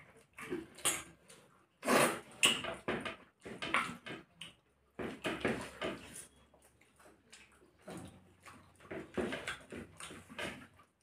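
Close-up eating noises: wet chewing and lip-smacking as two people eat rice and fish curry with their fingers, coming in irregular bursts, loudest about two seconds in.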